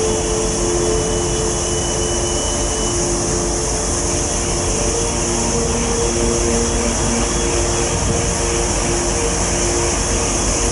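Steady engine rumble and rushing wake of the ferry Victoria of Wight under way, heard on its open aft deck, with soft background music of held chords.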